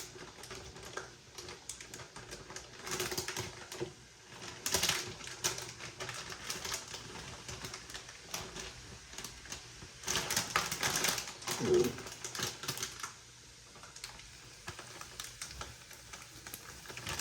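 Zip-top plastic bag being pressed shut and handled: irregular crinkling and clicking, with a few louder bursts of rustling.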